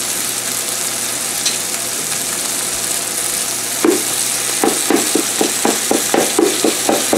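Ground beef sizzling in olive oil in a pot; about four seconds in, a wooden spatula starts scraping and breaking up the meat in quick strokes, about four a second.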